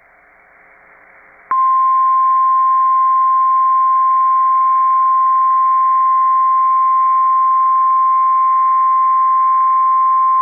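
Emergency Alert System attention tone for a tornado warning. After faint radio hiss, a single steady high beep starts about a second and a half in and holds unbroken for about nine seconds.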